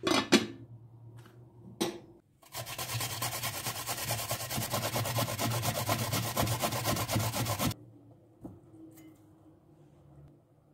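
A glass lid knocks onto a metal cooking pot, the loudest sound. Then, about two and a half seconds in, a vegetable is grated on a stainless steel box grater in rapid, even rasping strokes for about five seconds, stopping suddenly.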